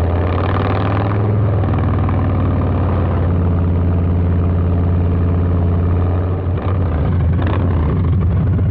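Harley-Davidson Low Rider S's 117 Milwaukee-Eight V-twin running loud through a Two Brothers 2-into-1 exhaust while being ridden, a steady deep exhaust note with a brief dip about six and a half seconds in.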